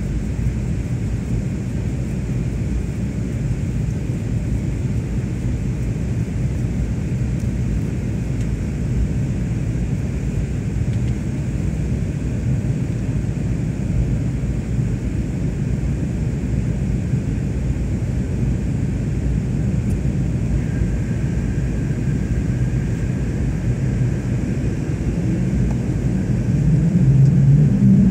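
Airliner cabin noise during the climb after takeoff: a steady low rumble of engines and rushing air. A faint steady tone joins about two-thirds of the way through, and the rumble swells briefly near the end.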